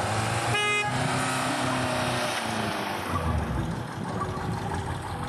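A car driving off, its horn giving one short toot about half a second in, then the engine and tyres running on as it moves away.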